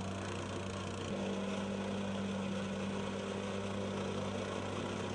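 Vibratory plate compactor's small engine running steadily as the plate shakes dry sand down into the paver joints to lock the pavers together, with a slight shift in tone about a second in.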